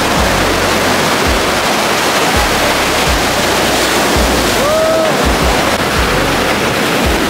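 Ocean surf breaking and washing up the beach in a loud, steady rush. About five seconds in, one short cry rises and falls over it.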